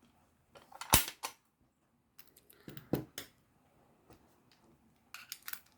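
Sharp metallic clicks and knocks as a just-picked padlock and its picking tools are handled: a loud one about a second in, another about three seconds in, and a quick run of small clicks near the end.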